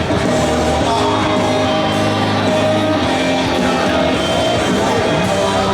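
Loud rock music with guitar and a singing voice.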